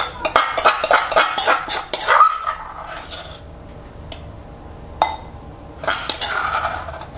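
Metal spoon scraping and clinking against the inside of a stone mortar as it scoops out pounded chili paste: a rapid run of scrapes over the first three seconds, a single knock about five seconds in, then a longer scrape near the end.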